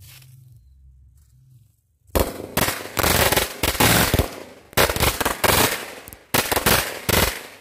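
A bundle of small red firecrackers going off: a faint fuse hiss for about two seconds, then a rapid, uneven string of loud bangs in clusters with short gaps.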